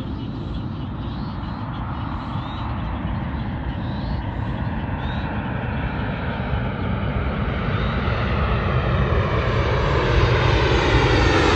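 Boeing 737 MAX 8 jet on final approach, its CFM LEAP-1B turbofan engines growing steadily louder as it comes closer, with a whooshing sweep that slowly falls in pitch.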